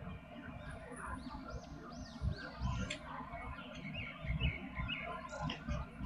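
Small birds chirping in short, arched calls repeating every second or so, over soft low thumps and rustling.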